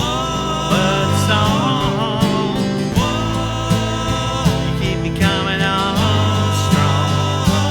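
Acoustic country-style music without lyrics: a lead melody of long held notes with vibrato that slides between pitches, over steady bass and chord accompaniment.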